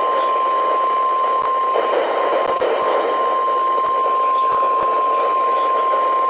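A NOAA Weather Radio warning alarm, one steady unbroken alert tone, coming through a radio receiver with a hiss of static and scattered crackles. It is the alert that announces a severe thunderstorm warning about to be read.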